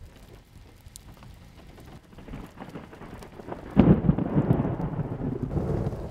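Thunder from a tornadic thunderstorm: faint storm noise at first, then a sudden loud peal about two-thirds of the way in that rumbles on and slowly eases off.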